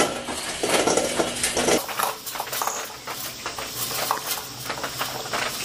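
Burning charcoal briquettes tumbling out of a metal chimney starter into a kettle grill's charcoal pan, clattering. The clatter is heaviest in the first two seconds, then thins to a scatter of small ticks.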